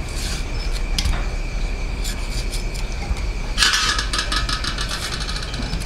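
Kitchen cooking noises over a steady low rumble and a thin, steady high tone. There is a light knock near the start and another about a second in, then about a second of rapid metallic rattling and scraping about three and a half seconds in.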